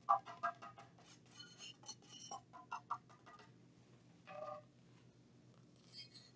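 Light clicks and taps of a plastic weighing boat and spatula being handled over a plastic powder jar with nitrile-gloved hands, several a second for about three and a half seconds. Then a short rub as the boat is wiped with an alcohol pad for cleaning, and a brief crinkle near the end.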